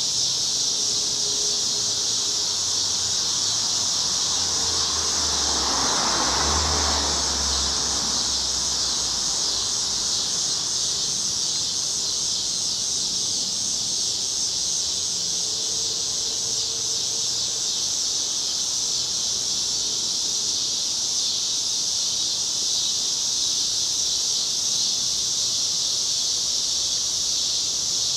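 A chorus of summer cicadas buzzing in a steady, high drone. About four seconds in, a low rumble swells and fades away over a few seconds.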